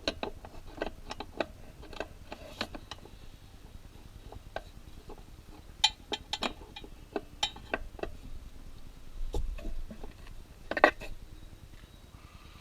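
Hand tools clicking and clinking against metal while the 1/2-inch battery cable terminal nut is loosened on a Jeep 4.0 L straight-six's starter solenoid. The sharp taps come irregularly and in clusters, the loudest a double clink about 11 seconds in.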